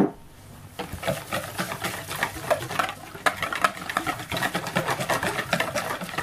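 Wire balloon whisk beating a wet batter of egg, water, psyllium husk and ground flaxseed in a plastic mixing bowl: fast, uneven clicking and scraping of the wires against the bowl, after a single knock right at the start.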